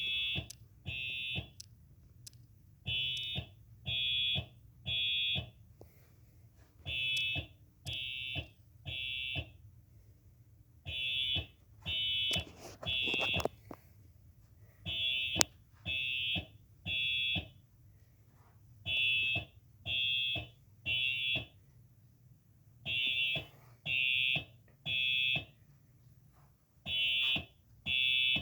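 Recording of a Simplex TrueAlert fire alarm horn played back, sounding the temporal-3 evacuation pattern: three short high-pitched blasts about a second apart, then a pause, repeating every four seconds. A single sharp click comes about halfway through.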